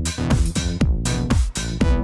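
Electronic dance music with a fast, steady beat.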